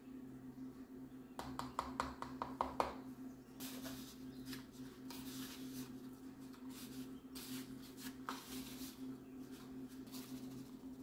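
A few quick taps of a measuring spoon against a plastic bowl as cinnamon is added, then fingers rubbing and tossing a dry, crumbly flour-and-butter topping in the bowl, a soft scattered rustle. A steady low hum sits underneath.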